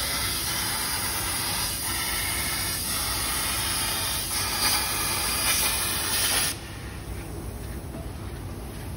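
Esprit Lightning HD CNC plasma cutter's torch cutting metal plate: the steady hiss of the plasma arc, which cuts off suddenly about two-thirds of the way through as the arc switches off.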